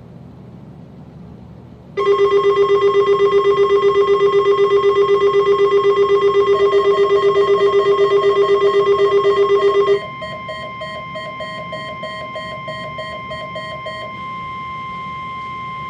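Faint radio static, then about two seconds in a weather radio receiver sounds a loud, rapidly fluttering alarm. About ten seconds in it gives way to the steady, single-pitched NOAA Weather Radio warning alarm tone, with a quieter beeping over it until about fourteen seconds in. It marks the start of the required weekly test broadcast.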